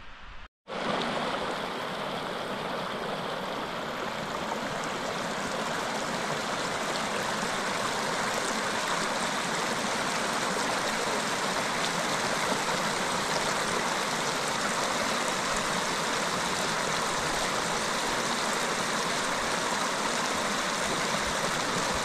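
Mountain stream rushing steadily, a full, even noise of water. It cuts in after a brief moment of silence near the start.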